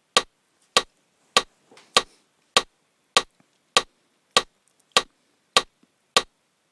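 Metronome clicking from a looper app on an iPhone, sharp identical ticks at a steady tempo of about 100 a minute, eleven of them, counting in the loop before recording starts.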